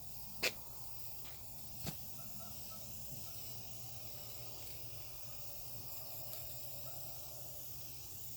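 Aerosol can of spray lacquer hissing faintly and steadily as a coat is sprayed on, with two short sharp clicks near the start.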